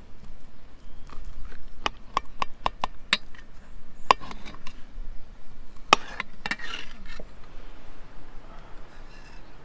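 Knife and fork cutting fried liver on an enamel plate: a quick run of about six sharp clicks of cutlery against the plate, then two louder knocks about four and six seconds in.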